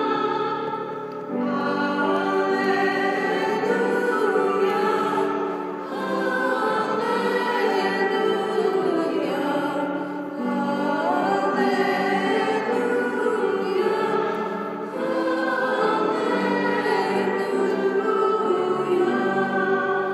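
Choir singing a hymn over sustained chords, in phrases of about four to five seconds with short breaths between them.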